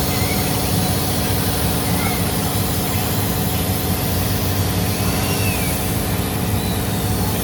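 Industrial laser processing machine running: a steady low machine rumble with a constant hiss, and a few faint short squeaks now and then.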